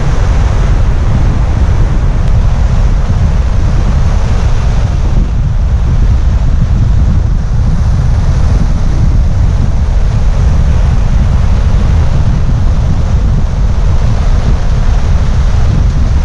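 Loud, steady wind buffeting the microphone over the continuous wash of surf on the beach.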